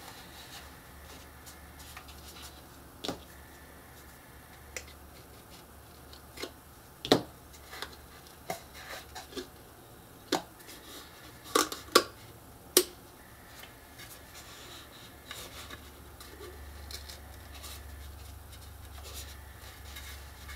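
Chipboard and paper being handled and pressed by hand: scattered sharp clicks and taps, with a cluster of louder ones about 11 to 13 seconds in, as the cut tabs are pushed in and folded.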